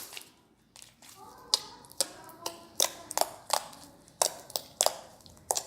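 Butter slime being pressed and squeezed by hand, giving a quick series of sharp pops and clicks, about three a second, starting about a second and a half in.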